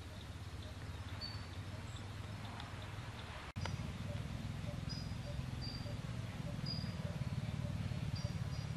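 Small birds chirping in short high notes, roughly one a second, over a steady low rumble. The sound drops out for an instant about three and a half seconds in.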